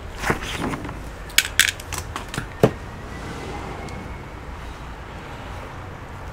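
Sharp clicks and taps from small plastic and metal laptop parts being handled while the motherboard is pressed into place: several in quick succession over the first few seconds, the loudest about two and a half seconds in.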